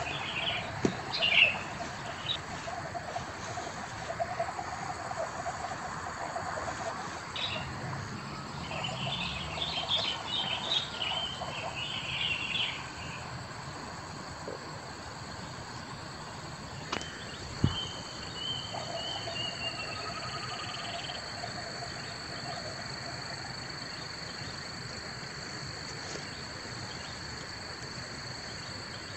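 Birds chirping in the background over a steady, high, thin insect-like drone; the chirps are busiest in the first half. A single short knock comes a little past halfway.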